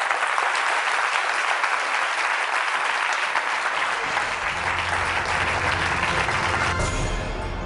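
Audience applauding steadily. About halfway through, low music comes in underneath, and the applause fades out near the end.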